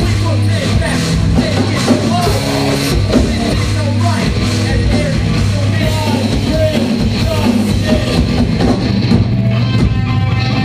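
Live metalcore band playing loud distorted guitars, bass and drums, with vocals over them.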